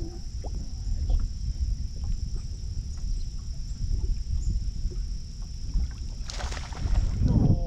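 Wind rumbling on the microphone and water moving against a fishing boat's hull, under a faint steady high-pitched whine. A short hiss comes about six seconds in.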